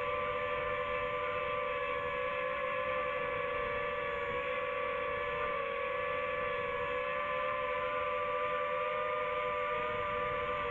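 Quadcopter drone's motors and propellers whining steadily while it hovers: a few close, steady tones that waver slightly in pitch.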